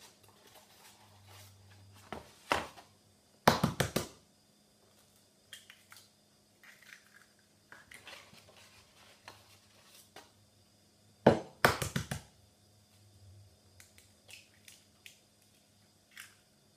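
Eggs being cracked into a bowl: a quick run of sharp shell knocks about three and a half seconds in, and another near twelve seconds, one for each of two eggs, with faint clicks and rustles of shell and carton in between.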